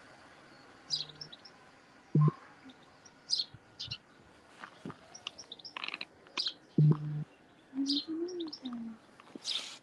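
Wild birds chirping and singing, with many short high calls throughout. Two loud, short low thumps, one about two seconds in and one about seven seconds in, stand out above them.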